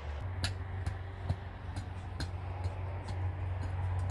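Light, evenly spaced tapping, a little over two taps a second, over a steady low hum.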